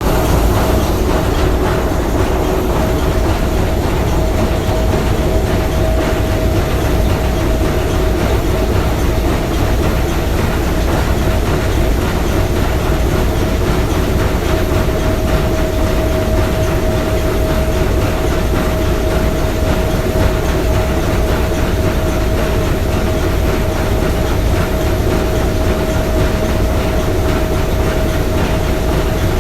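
The S.S. Bohuslän's three-cylinder triple-expansion marine steam engine running steadily: a dense, unbroken mechanical clatter with a steady hum.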